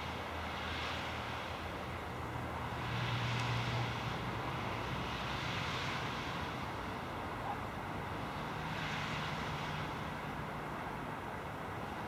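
Background motor-vehicle traffic: a low engine hum with several swells of tyre and engine noise as vehicles pass, the loudest about three seconds in.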